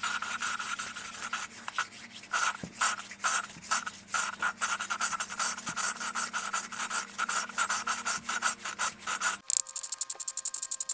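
Valve being lapped into its seat in a motorcycle cylinder head with lapping compound: a gritty back-and-forth rubbing, several strokes a second. About nine and a half seconds in it cuts off abruptly and a fast, even high-pitched ticking takes over.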